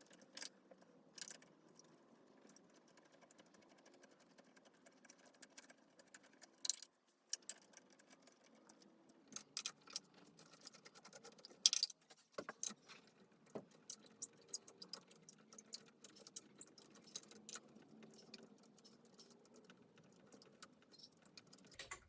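Scattered light metallic clicks and clinks of hand tools and loose parts being handled while the cylinder head is taken off a Yamaha AG100 engine. The clicks are irregular, with the loudest about twelve seconds in.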